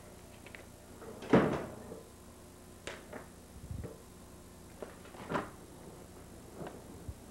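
A single loud knock about a second in, then a few lighter knocks and rustles of household handling and movement.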